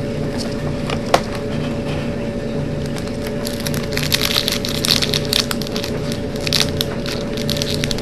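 Trading-card booster pack wrapper crinkling and tearing open, the crackle loudest through the middle and later part, with a sharp click about a second in.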